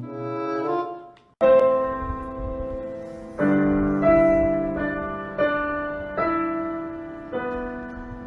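Slow piano music: chords struck about once a second, each left to ring and fade.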